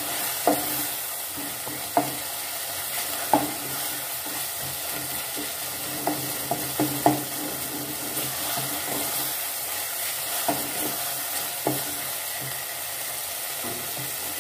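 Onion-tomato masala with ground spices sizzling in oil in a metal pot while a wooden spoon stirs it: a steady sizzle with irregular knocks of the spoon against the pot.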